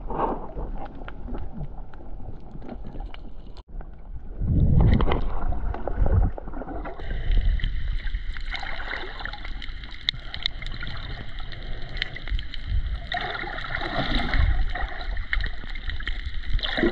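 Underwater sound picked up by a camera below the surface on a coral reef: muffled sloshing and gurgling water with scattered faint clicks, and heavier surges of water a few seconds in.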